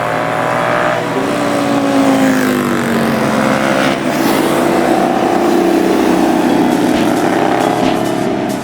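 Superbike engines and exhausts passing at speed. The engine note falls over the first three seconds, then another engine note climbs slowly and holds near the end.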